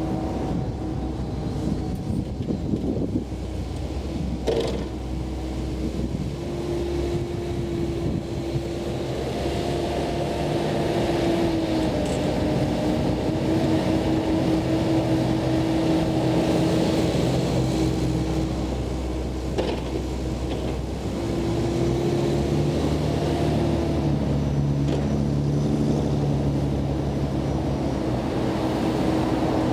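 Komatsu PC88 excavator working: its diesel engine and hydraulics running steadily, with a whine that shifts in pitch a few times as the machine digs and swings. A couple of sharp knocks from the bucket and linkage come through, one early and one about two-thirds of the way in.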